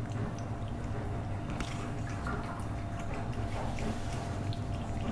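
Cat licking butter off a hard floor: a run of small wet smacks and clicks over a steady low hum.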